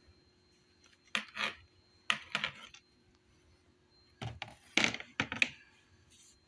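Hard plastic knocking and clattering in three short bursts, the loudest near the end, as a plastic sifting litter box's perforated tray is handled and set into its pan.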